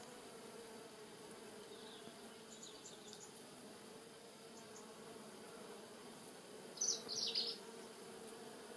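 Faint steady buzz of a white-tailed bumblebee foraging among rosemary flowers. A few short high chirps come through, the loudest about seven seconds in.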